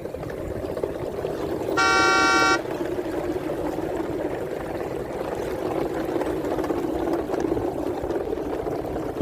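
A vehicle horn sounds once, a single loud toot of under a second about two seconds in, over a steady engine-like rumble.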